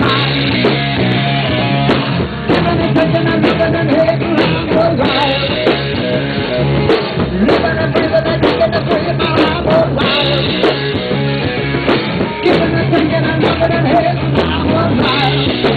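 Rock band playing live: a drum kit keeping a steady beat under the band, with singing.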